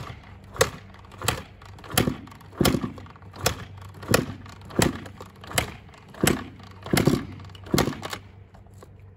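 Honda CR125 two-stroke dirt bike being kick-started with the choke on: about a dozen quick kicks, roughly one every two-thirds of a second, each a thud of the kickstarter turning the engine over, and the engine does not catch.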